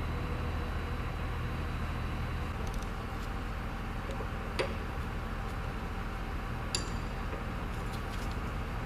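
Steady low mechanical hum under a few sharp metallic clinks, two of them louder, from a wrench and hose fittings as a hydraulic hose is connected to the press.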